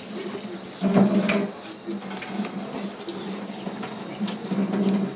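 Water running from a kitchen tap into a sink, with a low hum and a few light knocks from food preparation at the counter.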